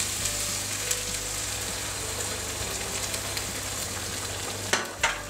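Ham, mushrooms and cream sauce sizzling in a frying pan as pasta cooking water is ladled in and stirred with a wooden spatula. A steady hiss runs throughout, with a couple of sharp knocks near the end.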